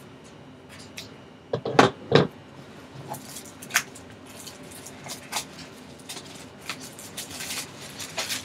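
Plastic shrink-wrap being cut and peeled off a small cardboard box, crinkling in short crackles. Two loud, short sounds come about two seconds in.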